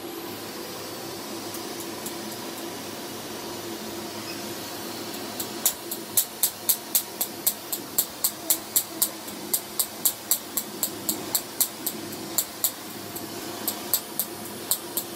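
Alma ClearLift laser firing on skin coated with carbon: a sharp snap with each pulse, about three a second, starting about five seconds in, with a short break near the end, as the pulses vaporize the carbon. Underneath runs the laser unit's steady hiss and hum.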